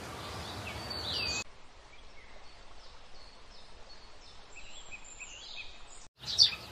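Outdoor nature ambience with scattered short bird chirps. The background noise drops away abruptly about one and a half seconds in. Near the end there is a brief gap, then a few louder chirps.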